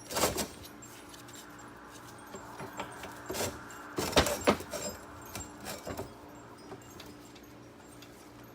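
Metal clinks and clanks of a drive shaft being turned over and pliers working at a universal joint's snap ring. The loudest knocks come just after the start and a cluster of them a little past the middle, over a low steady hum.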